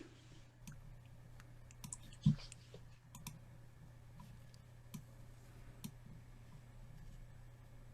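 Faint, scattered clicks of someone working a computer, over a low steady hum, with one louder thump about two seconds in.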